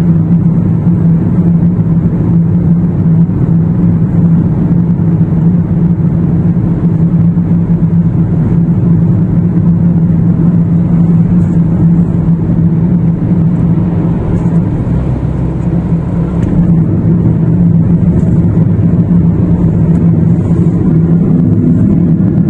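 Steady road noise inside a moving car's cabin: engine and tyre drone with a strong low hum, easing slightly about fifteen seconds in.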